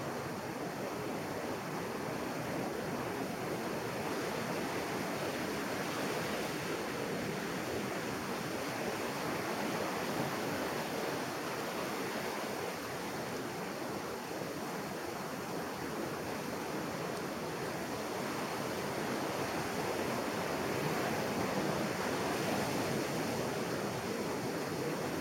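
Pacific surf breaking and washing up a sandy beach: a steady wash of waves and foam, swelling a little near the end.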